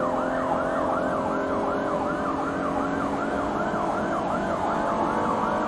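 Police siren on its fast yelp setting, a tone sweeping up and down about four times a second, over a steady lower hum.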